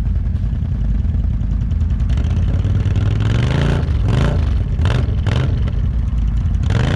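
ATV engine running, revved up several times from about three seconds in, its pitch rising with each throttle blip.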